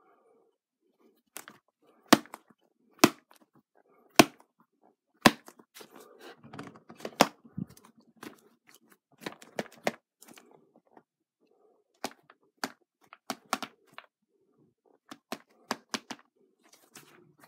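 A leather Donaiya baseball glove being flexed open and shut on the hand, giving a string of sharp leather snaps and slaps with softer creaking and rustling between them.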